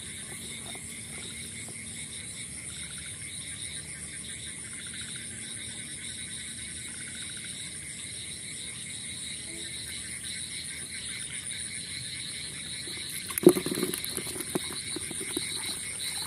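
A steady night chorus of frogs and insects in a rain-flooded field after heavy rain: a pulsing trill at several pitches. About 13 seconds in comes a loud thump, followed by rustling and a few knocks.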